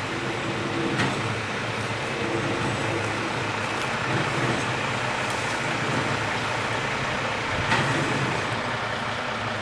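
Crane's diesel engine running steadily, with a couple of short sharp knocks.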